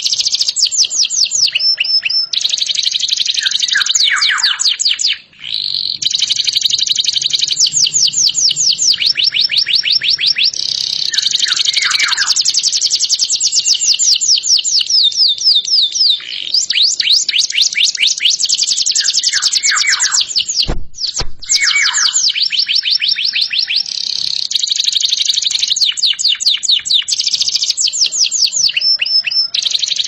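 Domestic canary singing continuously: long rolling trills of rapid repeated notes that switch to a new pattern every second or two, with occasional lower falling notes. A brief gap with a click about two-thirds of the way through.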